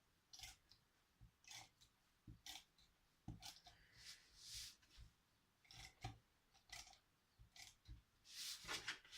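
Faint, short scratchy strokes of a tape pen laying adhesive along card tabs, repeated at irregular intervals with light knocks of card and pen.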